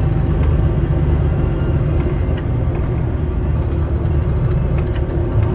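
City bus in motion, heard from inside the passenger cabin: a steady low rumble of engine and road noise with a few faint ticks.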